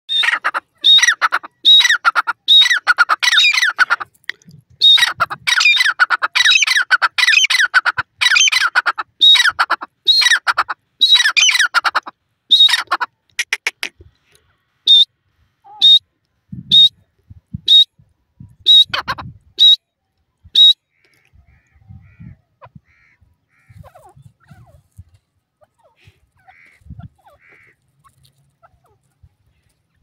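Male grey francolin (teetar) calling: loud, rapid repeated calls for about twelve seconds, then single short notes about once a second that stop about twenty seconds in.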